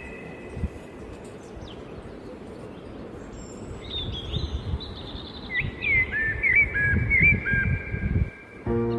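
Small birds singing: short whistled chirps and repeated notes, over a steady outdoor background, with a few low thumps on the microphone in the second half. Soft piano music comes in near the end.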